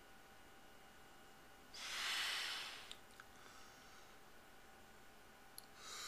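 A man's deep breath, about a second long, as he winds up to a sneeze that has not yet come; another breath starts near the end.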